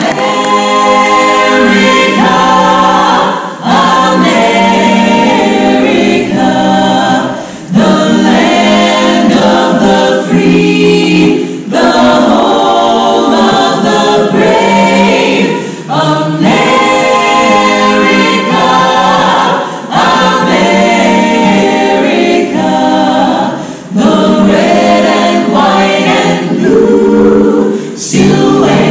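An a cappella vocal ensemble of men and women singing in close harmony, with short breaks between phrases every few seconds.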